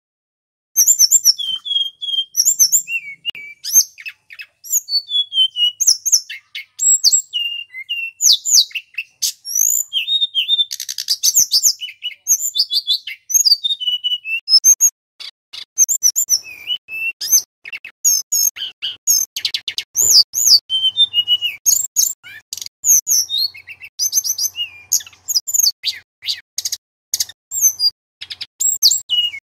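Male hill blue flycatcher singing: a fast, varied, almost unbroken run of high whistled notes, slurs and short trills, with a brief buzzy rattle partway through. The song starts about a second in.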